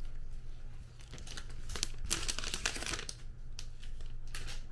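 Thin plastic protective film being peeled off a smart display's screen, crinkling and rustling, loudest about two seconds in and dying down with a few small clicks near the end.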